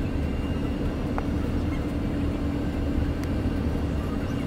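Steady drone of an airliner heard inside the passenger cabin: engine and airflow noise with a low rumble and a constant hum.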